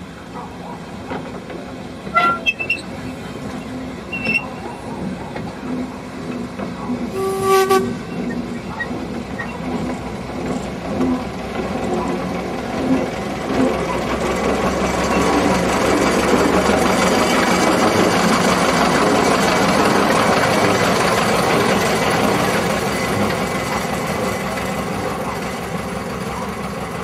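Narrow-gauge goods train: a few short whistle toots in the first eight seconds, then a string of small four-wheeled goods wagons rumbling and clattering past on the track. The rumble grows loudest in the middle and eases as the train draws away.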